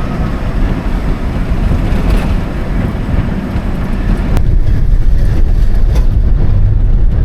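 A motor vehicle running on the road: a heavy, steady low rumble of engine and road noise with wind buffeting. It grows louder a little past halfway, and there is a single sharp click about four seconds in.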